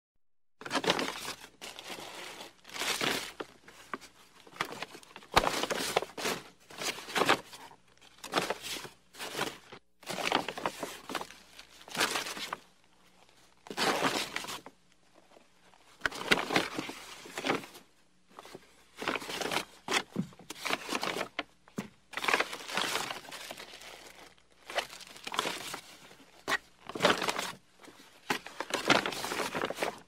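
Groceries being packed into shopping bags: the bags rustle and crinkle in irregular bursts as items go in, with short pauses between. The longest pause comes about halfway through.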